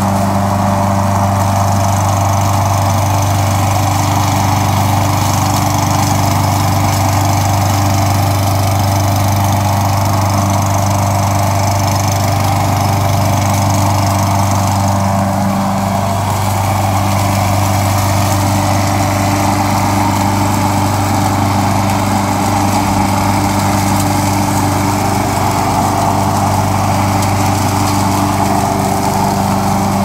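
Petrol engine of a Craftsman rear-bag walk-behind lawn mower, converted to remote control, running steadily with a low, even hum. Its tone shifts slightly about halfway through.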